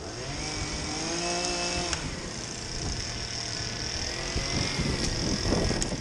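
A chainsaw's small two-stroke engine revs, its pitch rising for about two seconds and cutting off with a sharp click, then runs on more quietly.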